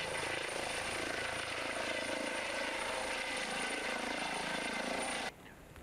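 Trauma helicopter running: a steady rotor noise with a high, constant turbine whine. It cuts off suddenly about five seconds in.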